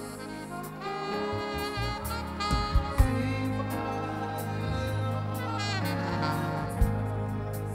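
Gospel band music playing: a melody line with sliding notes over a steady bass, with a few sharp drum hits.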